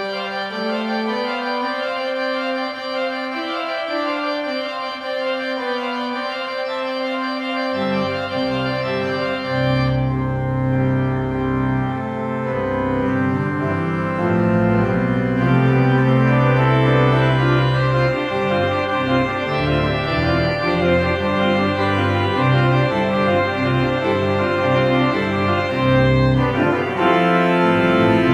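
Organ playing a slow piece of held chords that change step by step, with deep bass notes coming in about eight seconds in and the playing growing fuller toward the end.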